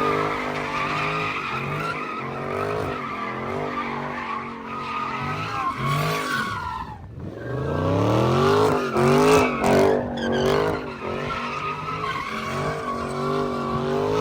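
Car engine revving hard, its pitch rising and falling again and again, with tyre squeal from the car sliding or doing a burnout. The revs drop away about seven seconds in and climb again right after.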